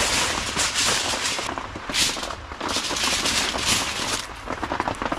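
Food sizzling over a campfire, a steady hiss with many small crackles and pops.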